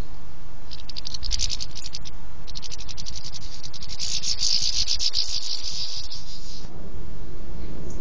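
Small songbirds at a garden feeder giving rapid, high-pitched rattling chatter in three bursts. The longest runs for about two and a half seconds as more birds flutter in. A steady low rumble runs underneath.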